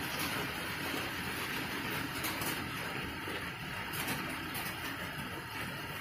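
Steady rain, an even hiss with no distinct drops or knocks.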